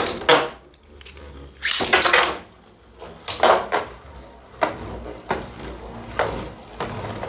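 Two Beyblade Burst tops, Spriggan Requiem and Legend Spriggan, launched into a plastic stadium: a burst of launch noise at the start as they land, then the tops spinning with a faint steady hum against the floor, broken by several sharp clacks as they strike each other and the stadium wall.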